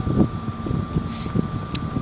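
Wind buffeting the microphone in irregular low thumps and rumble, over a steady thin high-pitched tone.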